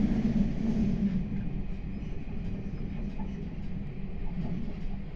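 Meitetsu 9500 series electric train running, heard from inside the front car: a steady, low running noise of motors and wheels on rail that eases slightly about a second in.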